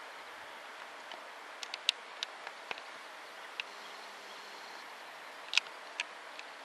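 Quiet outdoor ambience: a steady background hiss with scattered short, sharp ticks, the loudest about two seconds in and again near five and a half seconds.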